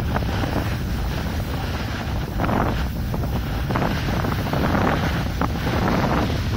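Wind buffeting the microphone of a snowboarder's camera during a run, a steady low rumble. Over it the snowboard scrapes across the snow, swelling several times as the edge bites in turns.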